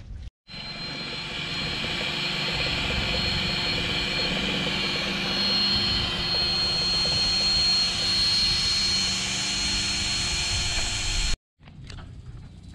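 A steady, loud machine drone with a constant high-pitched whine, cut off abruptly near the end.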